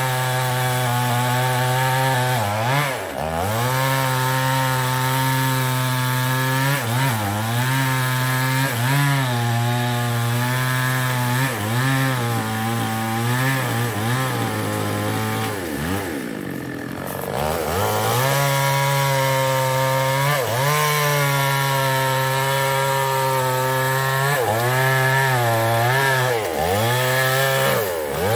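Chinese-made two-stroke chainsaw running at high revs while cutting wood. Its pitch dips and recovers every few seconds as the chain bites and the engine is loaded. About two-thirds of the way in it falls back toward idle for a second or so, then revs up again.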